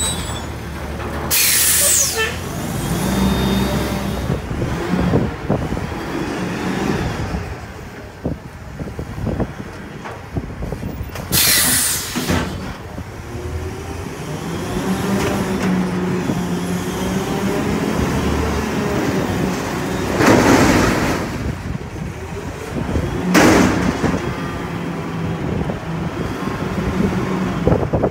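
Autocar front-loader garbage truck's engine revving up and down to drive the hydraulic arms as a dumpster is lifted over the cab, emptied and started back down. Four short, sharp air hisses cut in over the engine.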